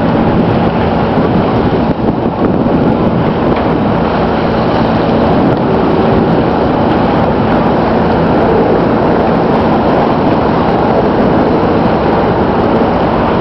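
Sailboat's inboard engine running steadily under way, a low even drone beneath a loud, constant rumble.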